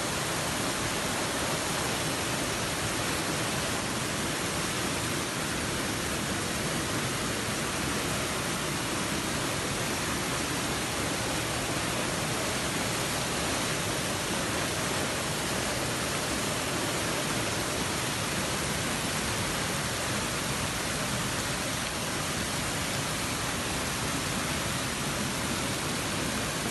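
Floodwater rushing down a street in a fast, turbulent torrent: a steady, loud rush of churning water that does not let up.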